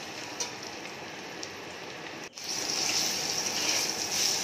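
Hard-boiled duck eggs sizzling in hot oil in a kadai, with a few light taps of a metal spatula. The sizzle cuts out for a moment a little past halfway, then comes back louder.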